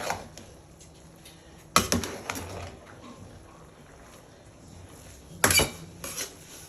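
Cookware and utensils clattering: a few sharp metal knocks and clinks, the loudest about 2 s in and about 5.5 s in, with stirring between.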